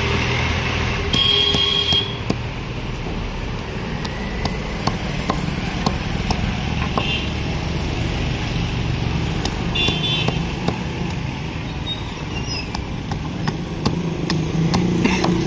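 Sharp knocks of a cleaver chopping fish on a wooden chopping block, coming irregularly, over a steady hum of street traffic engines. Two short high tones sound about a second in and again near ten seconds.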